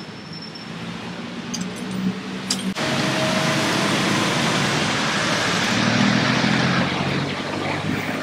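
Road traffic noise: a steady rush of passing cars and engines, which jumps abruptly louder a little under three seconds in.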